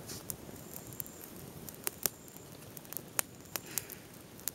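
Small fire of dry twigs crackling, with a scattering of sharp pops, most of them in the second half.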